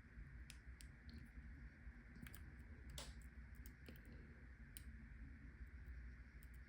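Faint, scattered clicks of a Peterson hook lock pick and tension wrench working the pins inside a lock's keyway, one click a little louder about three seconds in.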